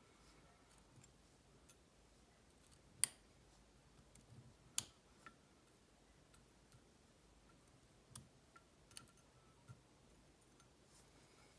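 Small metal clicks and ticks as tweezers pick the tiny sliders out of a disassembled Kwikset SmartKey cylinder and set them into a pinning tray. Two sharper clicks come about three and five seconds in, then a few lighter ones near the end.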